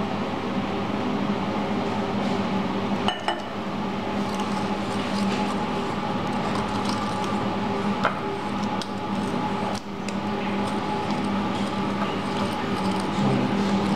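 Glass stirring rod clinking and scraping against a glass beaker as concentrated sulfuric acid is stirred into damp table sugar, a few sharp clinks over a steady background hum.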